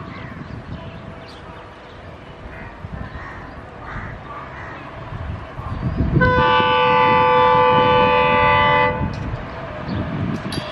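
WDP4D diesel locomotive sounding its horn: one long blast of about two and a half seconds, several steady tones together, starting about six seconds in and cutting off sharply. Under it runs the low rumble of the approaching train.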